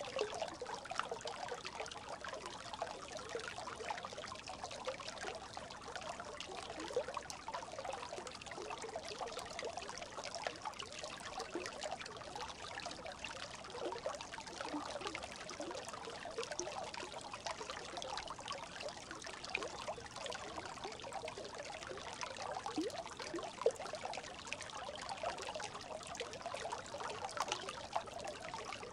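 A brook babbling steadily: a continuous trickle of running water full of small, quick bubbling notes.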